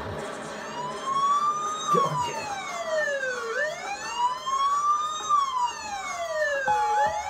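Siren sample in a DJ mix: a wail that rises and falls slowly in pitch, twice, with a steady tone coming in near the end.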